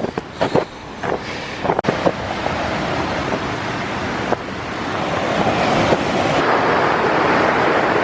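Rushing creek water, a steady wash of noise that grows louder from about four seconds in, with a few footsteps clicking in the first couple of seconds.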